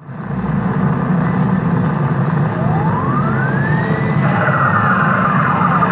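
A siren tone that rises once and falls back over about three seconds, starting midway, over a loud steady noisy rumble.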